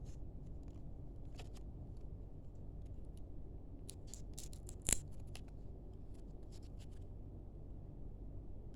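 Faint clicks and crinkles from a trading card pack being handled and opened, with one sharper click about five seconds in, over low, steady background noise.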